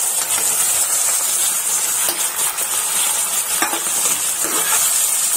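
Onion, capsicum and tomato puree frying in a kadai with a steady sizzle, as cubes of paneer are tipped in from a steel plate and stirred, with a few light clinks and scrapes of steel on the pan.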